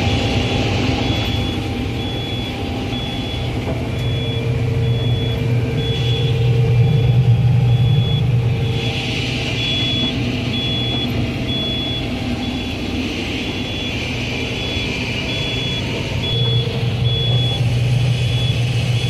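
Combine harvester engine running steadily, heard from inside the machine, with a high electronic beep repeating about twice a second over it, pausing briefly a couple of times.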